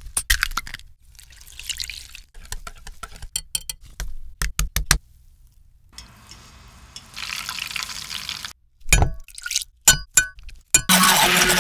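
Close-miked cooking sounds in quick succession: clinks and knocks of utensils against a glass mixing bowl, a steady hiss of nuggets deep-frying in oil from about six seconds in, then a metal spoon clinking in a saucepan, ending in a short loud hiss.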